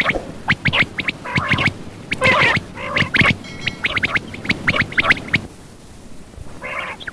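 Quail calling: a rapid run of short, sharp chirps mixed with raspy, gurgling notes that thins out about five and a half seconds in, with one more brief burst near the end.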